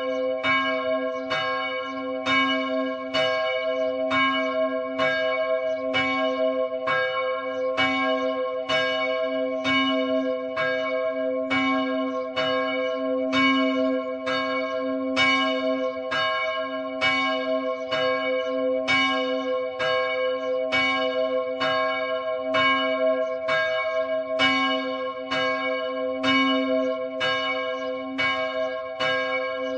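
Church bell struck over and over at an even pace, about two strokes a second, its ringing hum carrying on unbroken between strokes.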